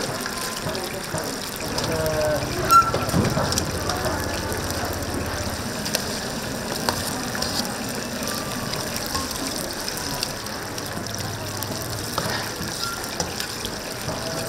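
Chicken deep-frying in a vat of hot oil: a steady sizzling hiss, with a sharp knock about three seconds in.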